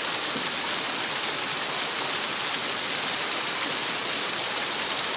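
Steady rushing hiss of running water, even and unbroken throughout.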